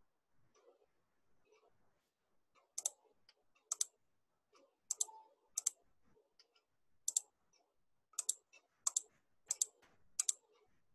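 Computer mouse clicking: about nine quick double clicks, sharp and light, spaced roughly a second apart from about three seconds in, with a hushed start.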